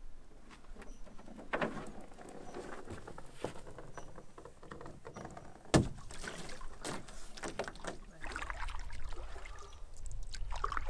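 Canoe hull knocking and scraping on shoreline rocks as it is set down and slid toward the water, with one sharp, loud knock about six seconds in. A low rumble comes in near the end.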